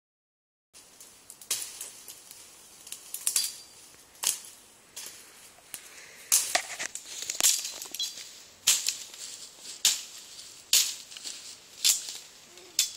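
Brush and branches being hacked by hand with a cutting tool: a run of sharp chopping and swishing strikes, about one a second.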